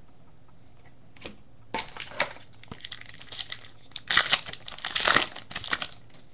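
Foil wrapper of a baseball card pack being torn open and crinkled, in irregular crackling bursts that start about two seconds in and are loudest around four to five seconds in.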